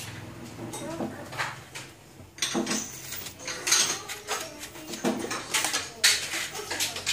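Bitter gourd halves being scraped and handled on a wooden chopping board: several short scrapes and knocks, a few seconds apart.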